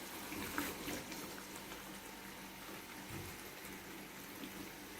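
Coconut-milk rendang sauce bubbling in a wok at a steady simmer, with a couple of light clicks in the first second.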